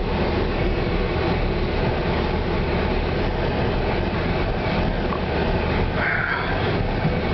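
BMW X5 climbing a steep cobblestone ramp, heard from inside the cabin: a steady engine drone with tyre noise over the stones.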